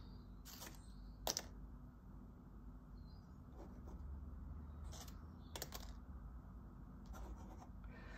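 Faint, scattered crisp clicks and short scratches from a dry autumn leaf being handled and a marker pen making marks on sketchbook paper, over a low steady hum.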